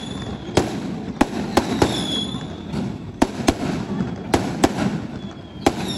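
Aerial fireworks bursting in an irregular series of about a dozen sharp bangs over a continuous crackling rumble, with a brief high whistle about two seconds in.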